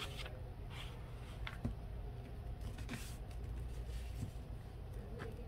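A sheet of copy paper rustling and sliding as it is folded in half and the crease is smoothed flat by hand: a few faint, soft swishes over a steady low hum.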